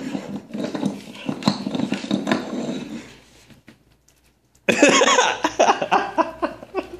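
An American Staffordshire Terrier and a mixed-breed dog vocalising as they play-wrestle, in short, irregular noises. The noises die away after about three seconds, then start again suddenly and louder a second and a half later.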